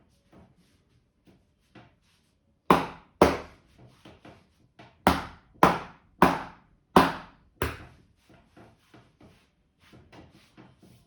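Hands striking a person's head during a traditional Indian head massage. There are seven loud smacks: a pair a few seconds in, then five more in quick succession. Softer, quicker patting comes before and after them.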